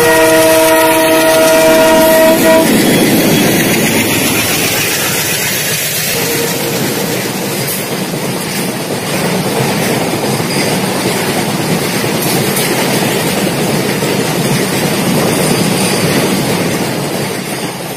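Train horn sounding for about two and a half seconds, then a train running along the track with a steady rumble and rattle of wheels on rails.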